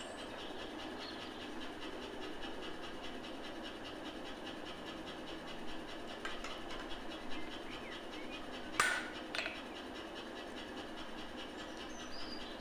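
Steady hum of a forge, with a few light metallic clinks between about six and nine seconds in, the loudest near nine seconds, as the tongs and a red-hot knife blade touch the steel anvil.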